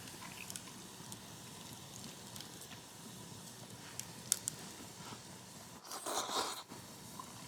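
Wood fire crackling in a flat fire stand: a steady low hiss with scattered sharp pops, the loudest about four seconds in. A brief louder rustling noise comes about six seconds in.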